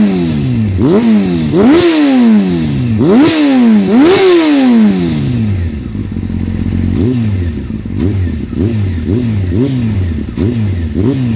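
A 1998 Honda CBR600F3's inline-four revving through an Akrapovič slip-on silencer with the bike standing still. The throttle is blipped: four or five big revs that climb quickly and fall back slowly to idle in the first five seconds, then, after a few seconds of idle, a string of quick short blips about two a second.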